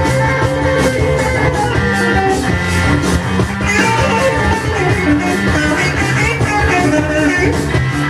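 Psychedelic blues-rock recording with electric guitar, bass and drums, the guitar bending notes.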